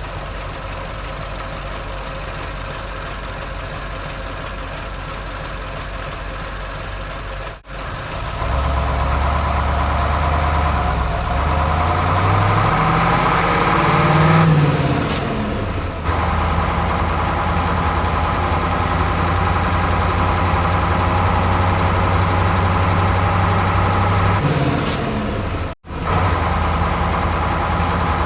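Engine-like drone of a radio-controlled construction vehicle running, rising in pitch and level around the middle and dropping back. It is louder from about a quarter of the way in, with two brief dropouts where the sound cuts out.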